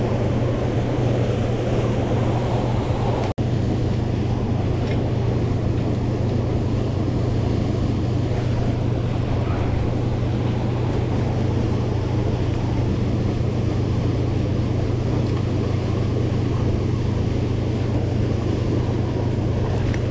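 Steady rushing of river water, with a constant low hum underneath. The sound cuts out for an instant about three seconds in.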